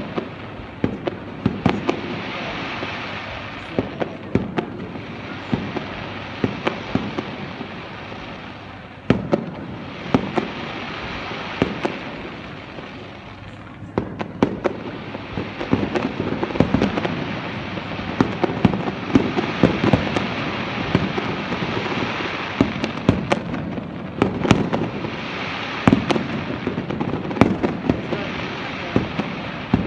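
Aerial fireworks display: shells bursting in rapid, irregular bangs over a continuous din, easing briefly about nine and again about fourteen seconds in.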